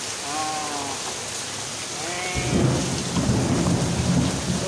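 Steady rain falling, with a low rumble of thunder that sets in about two and a half seconds in and keeps rolling.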